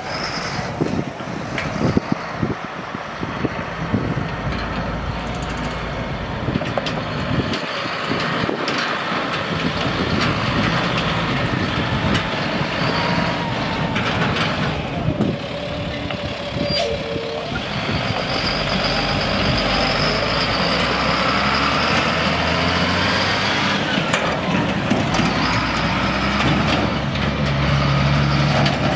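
A Ford F650 dump truck's Caterpillar 3126 six-cylinder turbo diesel running, with knocks and clatters in the first several seconds and a steady high whine for several seconds about midway.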